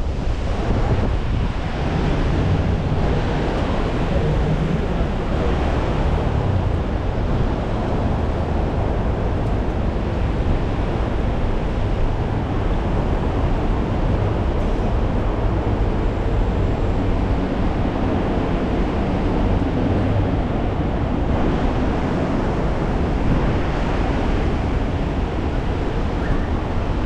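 Strong wind buffeting the microphone, a steady low rumble over the hiss of rain and road traffic.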